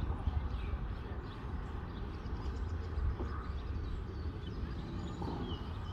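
Outdoor riverside ambience: a steady, uneven low rumble with a few faint bird chirps over it.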